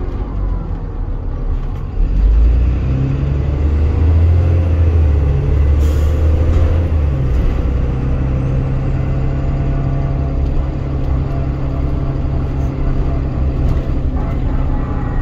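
Dennis Trident 2 double-decker bus engine heard from the upper deck. Its deep note rises sharply about two seconds in as the bus pulls under load, then settles into a steady drone as it runs on. A short hiss comes about six seconds in.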